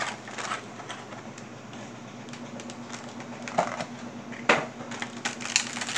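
Clear plastic packaging of a vinyl figure box handled, with a few light clicks and one sharp tap about four and a half seconds in, over a steady low hum.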